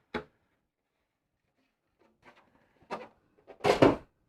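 Plastic model-kit parts and their packaging being handled: a short click just after the start, then quiet, then light rustling and a few sharp clicks, ending in a louder rustle and clatter about three and a half seconds in.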